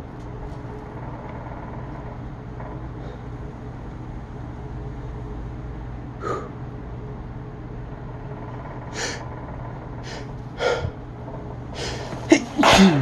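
A run of sneezes with sharp breaths between them: a few short ones spaced out through the middle, then the loudest burst near the end. A steady low hum runs underneath.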